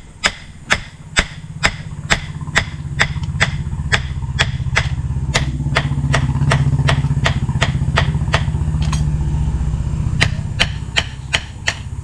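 A blacksmith's hand hammer strikes a red-hot knife blade on a steel anvil block, ringing clangs about two a second, with a short pause about nine seconds in. A low engine hum swells under the blows in the middle and fades near the end.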